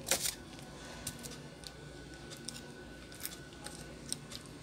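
Plastic LCD bezel of a Lenovo S100 netbook being pried away from the lid, which has been glued on: a sharp crack just after the start, then scattered small clicks and scrapes as fingers and a pry tool work along the edge.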